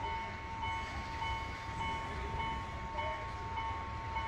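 Railway level-crossing warning bell ringing with an even beat of a little under two strokes a second, signalling that a train is approaching the crossing.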